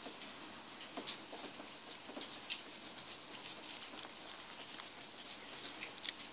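Faint rustling and a few small ticks as a plastic capsule toy egg and its crinkly plastic packaging are handled.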